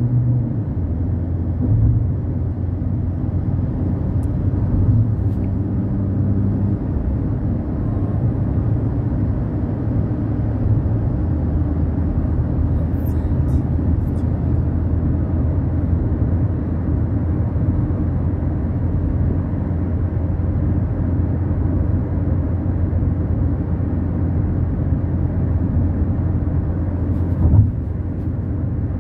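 A steady low rumble with a faint low hum in it, continuous and even in level, with a few faint clicks and a short thump near the end.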